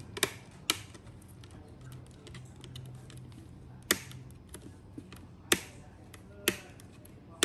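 Plastic laptop screen bezel snapping onto the display lid as it is pressed into place: about six sharp, separate clicks of its clips catching, irregularly spaced, the loudest about five and a half seconds in.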